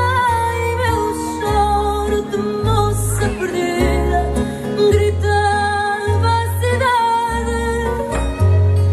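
Fado music: plucked guitars over deep, sustained bass notes, in a passage without lyrics.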